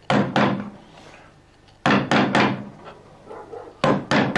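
Woodcarver's chisel driven into wood by mallet blows: seven sharp knocks in groups of two or three, about two seconds apart, each with a short ring.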